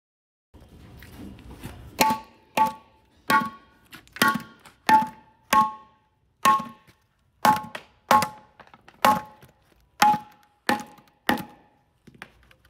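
About fifteen sharp knocks at uneven intervals, roughly one a second, each followed by a brief ringing tone at the same two pitches.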